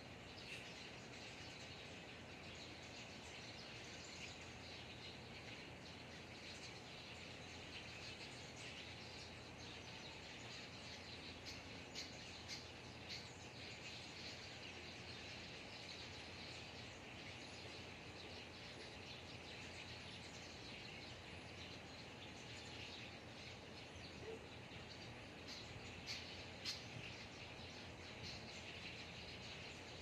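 Faint outdoor ambience of insects and birds chirping: a steady high-pitched wash of calls, with a few brief louder sounds around twelve seconds in and again near the end.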